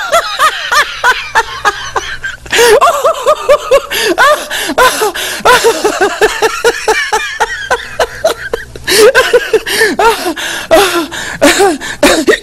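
Laughter: a rapid string of short ha-ha bursts that breaks off briefly twice.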